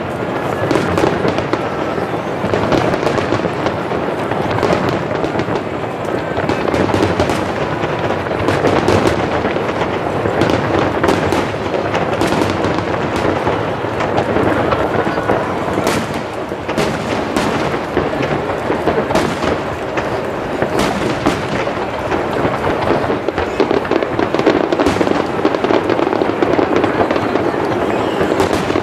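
Japanese fireworks display with aerial shells bursting in quick succession: a continuous run of booms, with many sharp cracks and crackling reports throughout.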